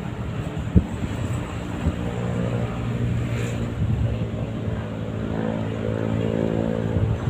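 A motor engine running steadily, with one sharp click about a second in.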